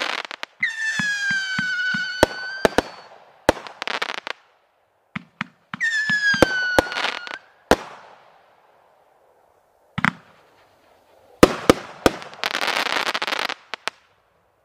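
World Class Fireworks 'Say What?' multi-shot fireworks cake firing. Shots launch with rapid dull thumps, two whistles slide down in pitch, sharp loud bangs go off throughout, and a dense crackling burst comes near the end.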